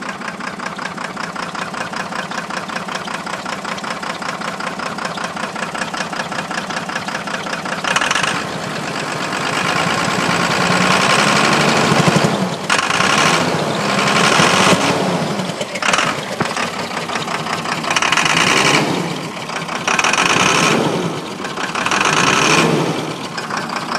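1993 first-gen Dodge Cummins 5.9-litre inline-six turbo diesel with a 4-inch exhaust, idling with an uneven, knocking beat, then revved in a series of short throttle blips from about a third of the way in. The engine has a dead miss on cylinder 2, caused by a blown head gasket between cylinders 1 and 2.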